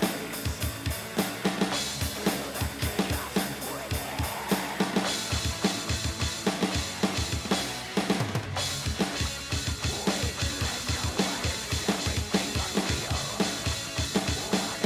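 Metal song with fast drumming from the Real Drum app's sampled drum kit, tapped on a touchscreen: rapid kick drum hits, snare and crashing cymbals over a dense full-band backing.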